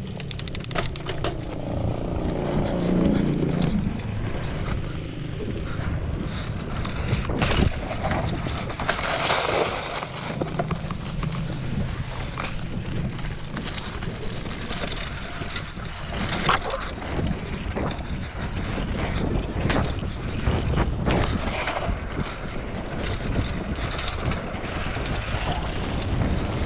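Wind buffeting the camera microphone on a mountain bike as it rolls along a dirt trail, with the tyres on dirt and scattered knocks and rattles from the bike over bumps.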